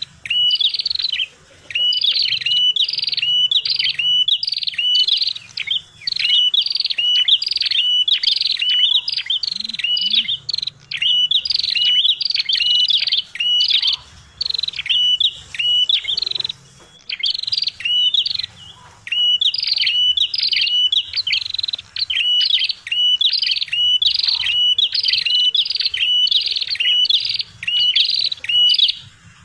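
Bird-trapping lure call of the prenjak kepala merah, a small rufous-headed songbird, calling in an agitated way: quick sharp notes, each dropping in pitch with a hooked end, about three a second, in long runs broken by brief pauses.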